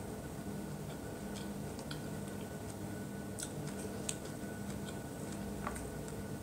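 Close-up eating sounds: scattered soft clicks and smacks as fried chicken is chewed and picked apart, over a steady low hum.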